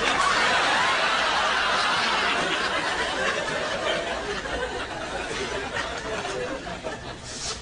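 Audience laughter, starting suddenly at full strength and slowly dying away over several seconds.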